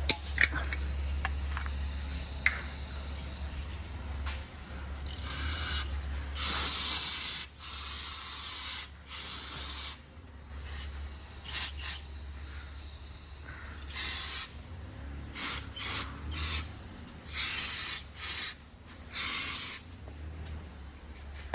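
Aerosol brake cleaner sprayed in a series of hissing bursts, several lasting about a second and others short quick squirts, to clean the mounting area before a new wheel bearing hub goes in.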